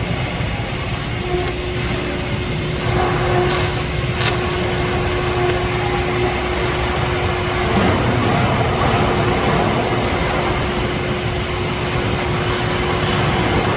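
Steady mechanical running noise with a constant hum-like tone that stops about eight seconds in, and a few faint ticks early on.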